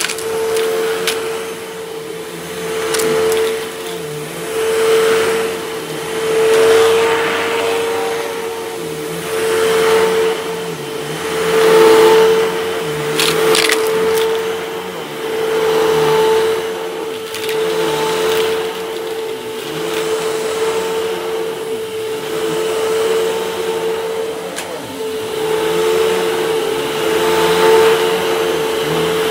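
Hoover WindTunnel 12-amp upright vacuum cleaner running while it is pushed back and forth over a rug. Its steady motor whine swells and fades about every two seconds with each stroke. There is a brief crackle about halfway through.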